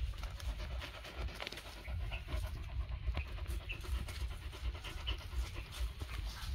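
A dog panting close up, a steady run of quick breaths.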